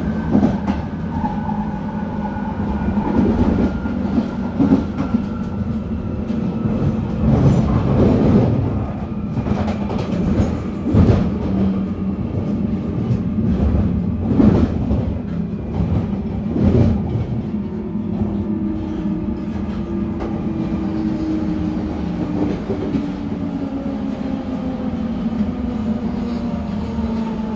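Inside a 1996 Tube stock car, the GTO traction inverter and motors whine with several tones gliding slowly down in pitch as the train slows, over a steady low hum. The wheels knock over rail joints several times in the first two-thirds.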